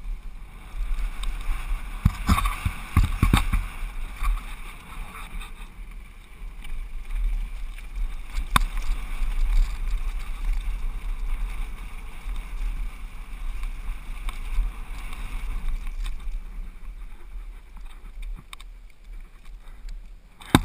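Wind rumble on an action camera's microphone during a fast downhill run on a Trek Slash mountain bike, with tyres running over dirt and the bike rattling over rough ground. A cluster of hard knocks from bumps comes about two to four seconds in, and a single sharp knock near the middle.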